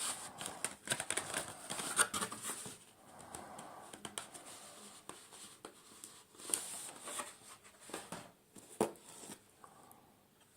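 Rustling and crinkling of packaging with scattered light knocks and clicks, as items are lifted out of a product box.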